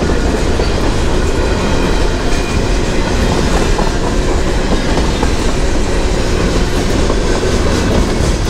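Long freight train rolling past, a loud, steady rumble of its cars' wheels on the rails.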